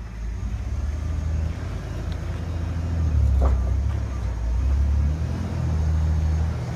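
Toyota off-road truck's engine pulling at low speed as it crawls up a rock ledge, the throttle swelling about three seconds in and again about five seconds in. A short squeak sounds about three and a half seconds in.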